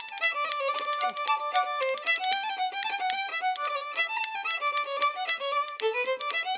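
Background music: a fiddle playing a quick tune of short, rapidly changing notes.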